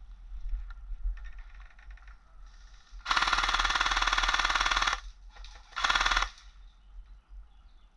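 Airsoft electric rifle firing on full automatic, close by. It fires one burst of about two seconds, then a short burst of about half a second a second later.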